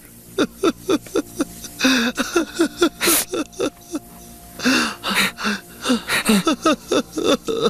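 A man sobbing in short, rapid gasps and whimpers, several catches of breath a second, with a short pause near the middle.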